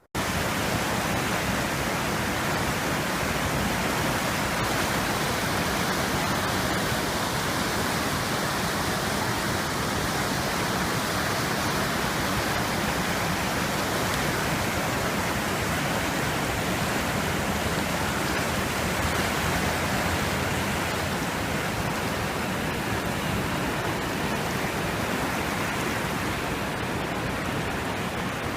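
Steady, even rush of flowing water, cutting in suddenly and holding level.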